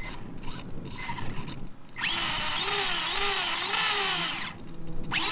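Small RC monster truck's electric motor and gears whining as the wheels spin freely in the air, the pitch wavering up and down with the throttle, starting about two seconds in. It cuts out briefly and starts again near the end.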